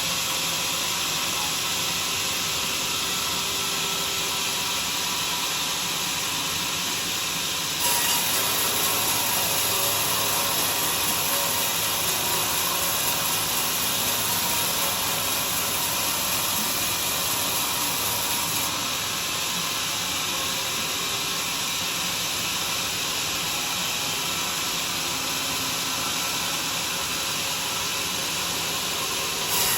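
Homemade sawmill running and sawing durian wood, a steady noisy whirr. It grows a step louder for about ten seconds from about a quarter of the way in, then settles back.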